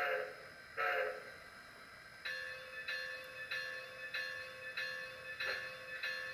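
Steam locomotive whistle blowing two short blasts, then the locomotive bell starts ringing about two seconds in, struck about one and a half times a second: the signals for a train about to depart.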